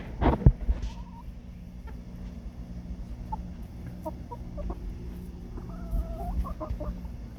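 Backyard hens clucking with short scattered calls, and one longer, wavering call about six seconds in. A loud sharp sound comes just after the start, and a steady low hum runs underneath.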